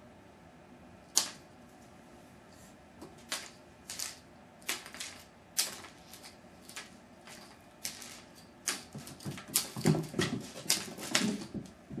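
A kitten and a wand toy at play on a hardwood parquet floor: scattered sharp clicks and taps, which thicken into a quick flurry of skittering taps and light thumps near the end.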